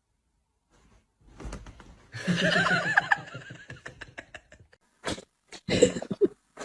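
A pet animal's wavering cry about two seconds in, followed by a few short, sharp noises.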